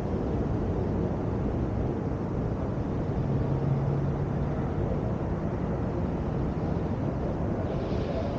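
Steady low rumble of wind on the microphone of a 360 camera carried aloft by a hot air balloon, with a brief low hum about three seconds in.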